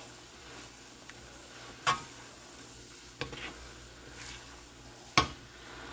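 A metal spoon stirring red kidney beans in thick sauce in a nonstick frying pan, knocking against the pan three times with the last knock loudest, over the faint sizzle of the sauce simmering.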